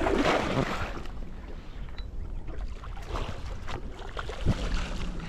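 A large barramundi thrashing and splashing at the surface beside the boat as it is brought to the landing net. The loudest splash comes in the first second, with smaller splashes about three and four and a half seconds in.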